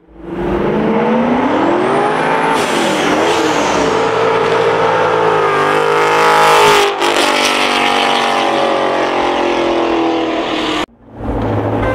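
Drift car's engine revving hard, its pitch rising and falling again and again, with a hiss of tyre noise over it as the car slides. The sound cuts out suddenly about eleven seconds in and then comes back.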